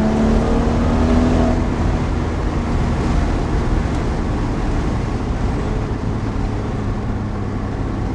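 BMW N55 turbocharged inline-six with a VRSF catted downpipe, heard from inside the car with the windows down. The engine pulls with a steady exhaust note for about a second and a half, then fades to a low rumble under road and wind noise.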